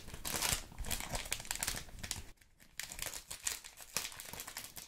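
Close-miked crinkling and rustling of something handled by hand, with a brief pause about two and a half seconds in.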